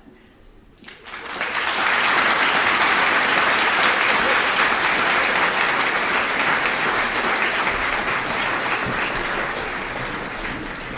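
Audience applauding in a hall, starting about a second in, building quickly and slowly tapering off near the end.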